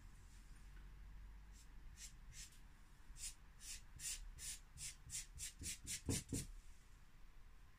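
A paint-loaded piece of foam rubbed and dabbed across the embossed brick surface of a model building wall: a run of short scratchy strokes that come quicker as they go, with a few dull knocks near the end.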